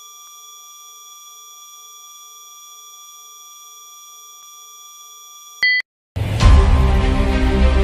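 Background music: a held electronic synth tone, a short beep about five and a half seconds in, then a loud beat-driven track with heavy bass that starts about six seconds in.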